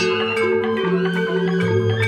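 Balinese joged bumbung gamelan of bamboo xylophones (grantang) played with mallets: quick interlocking struck notes over deeper held notes that step to a new pitch a few times.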